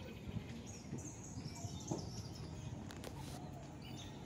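Outdoor lakeside ambience: small birds chirping now and then over a low steady rumble, with a few faint clicks.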